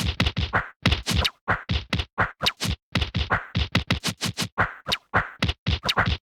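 A rapid flurry of punch sound effects: short, sharp hits about five a second, in quick bursts with brief pauses, cutting off suddenly near the end.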